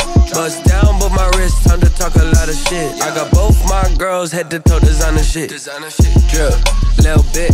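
Hip hop track with rapped vocals over a heavy bass beat and sharp hi-hats; the bass drops out briefly twice in the middle.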